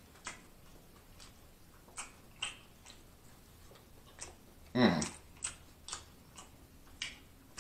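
Close-miked chewing of a steak taco with pico de gallo: scattered small wet mouth clicks and lip smacks, with one short louder mouth sound about five seconds in.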